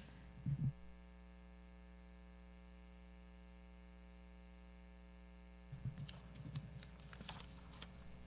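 Quiet room tone with a steady electrical hum and a brief sound just after the start. From about six seconds in come faint, scattered clicks and rustles.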